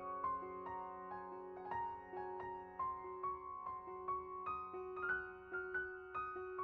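Soft background piano music: a run of single notes over held lower notes.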